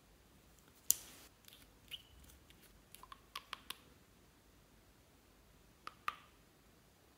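Clear slime being handled by hand: a scattering of sharp clicks and small pops, the loudest about a second in and a quick cluster a little past three seconds.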